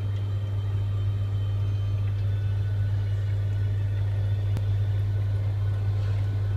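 Steady low hum of an aquarium pump, with faint steady higher tones above it.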